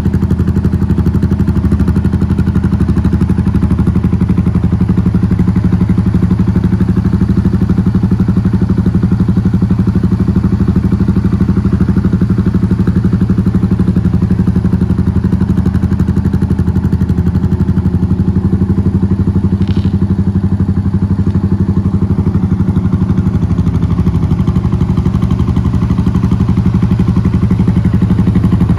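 2013 Suzuki S40 Boulevard's 652 cc air-cooled single-cylinder engine idling steadily through a Delkevic slip-on exhaust with its baffle installed. It sounds comfortably loud, with an even pulse and no revving.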